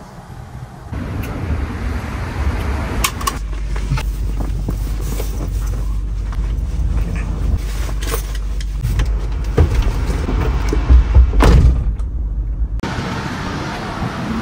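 A vehicle driving: a steady low engine and road rumble, with a few sharp knocks and thumps, louder ones near the end, before it cuts off abruptly.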